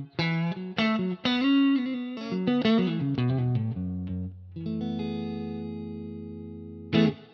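Nash S63 Strat-style electric guitar on its neck pickup, played with a clean tone: a quick run of single notes, then held chords ringing out, and a last chord struck near the end that is quickly muted.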